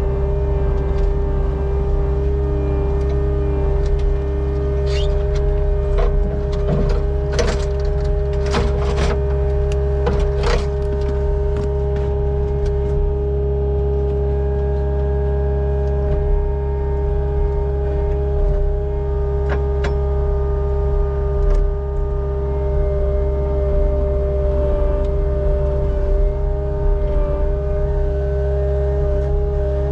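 CAT 279 skid steer running steadily with a constant whine over its engine hum. A cluster of sharp knocks and clanks comes through between about five and eleven seconds in, with a few more later.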